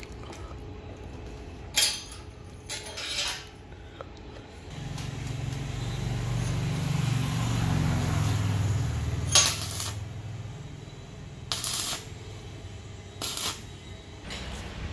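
Steel motorcycle sprockets clinking and knocking against each other as they are set on the frame, then a few short crackling bursts of arc welding in the second half as a sprocket is tack-welded in place. A low rumble swells through the middle.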